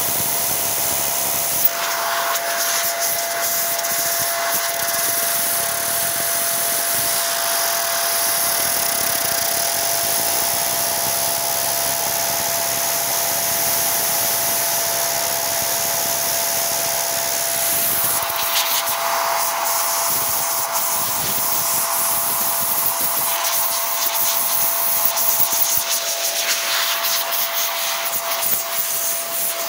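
XPOWER electric air blower running steadily with a constant whine over a rush of air, its nozzle held against the drone's brushless motors to blow out the water after washing. The airflow sound shifts a few times as the nozzle is moved between motors.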